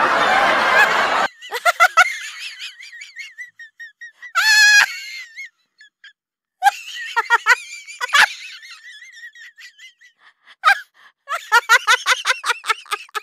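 Noisy ambience that cuts off abruptly about a second in, followed by edited-in comic sound effects over a dead-silent background: laughter-like calls, a high trill, and warbling whistle-like tones, busier near the end.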